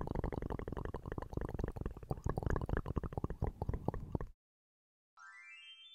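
Rapid, irregular fingertip tapping close to the microphone, a quick flurry of dull taps that stops abruptly. After a short gap, a brief rising chime-like sound effect.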